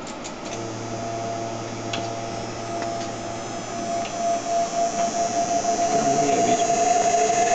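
Small AC motor fed by a six-step inverter, giving a steady electrical whine and hum that grows louder and pulses from about four seconds in. A few light clicks come in the first three seconds.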